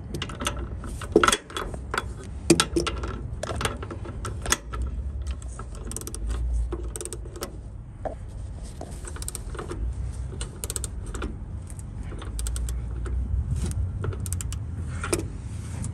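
Hand ratchet with a 19 mm socket clicking in short, uneven runs while it tightens a bolt that had worked loose on a trailer bracket, with a few sharper metal clinks.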